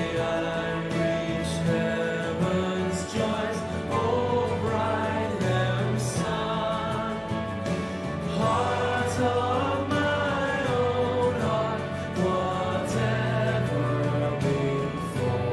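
Congregation singing a worship song together, with instrumental accompaniment.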